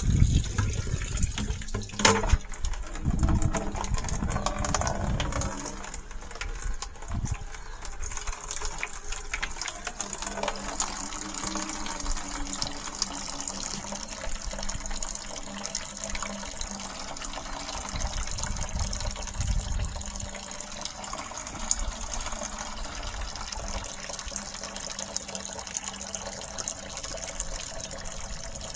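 Toilet-flush water running out of a sewer pipe into a bucket, a steady wash of flowing, filling water, with a sharp knock about two seconds in.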